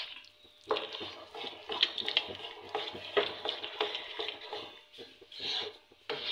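Wooden spoon stirring a thick, wet porridge of wheat, rice and lentils with shredded chicken in a pan: irregular wet stirring and scraping strokes, with a brief pause about five seconds in.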